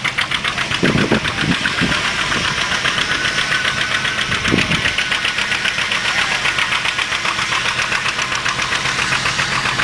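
Antique tractor engine running steadily with a rapid, even beat of exhaust pulses.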